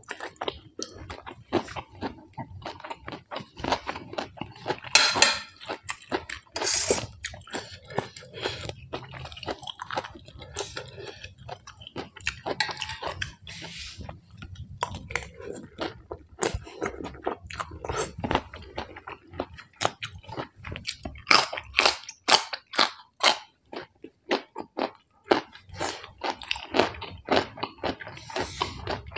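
Close-miked chewing and crunching of a meal of rice noodles, curry and raw vegetables, a dense run of irregular sharp bites and clicks with a few longer wet, noisy passages.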